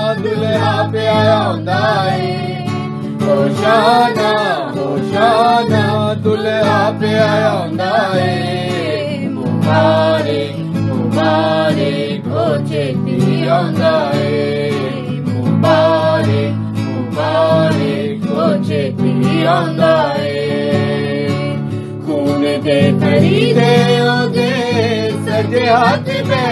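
Christian gospel song: a voice singing a melody over guitar and a steady low accompaniment.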